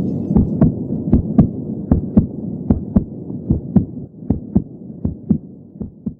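Soundtrack of deep, throbbing pulses in a steady heartbeat-like beat over a low hum, fading out gradually and ending near the end.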